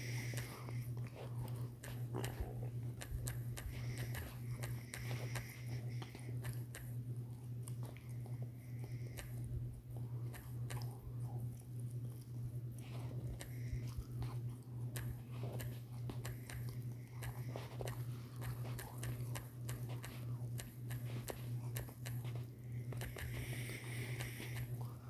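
Irregular light clicks and taps of typing on a phone's touchscreen keyboard, over a steady low hum.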